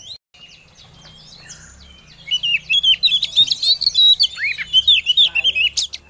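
Female Oriental magpie-robin (kacer) singing a fast, dense run of varied chirps and whistles. The run starts about two seconds in, after a brief dropout and a quieter stretch, and there is a sharp click just before the end. This is a female's call to a male, the kind of song played as a lure to stir a male kacer into answering.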